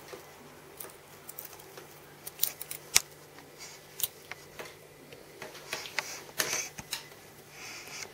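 Young ferret's claws clicking and scrabbling on a wooden surface as it scampers about: irregular taps and scuffs, with one sharp knock about three seconds in and a few short rustles.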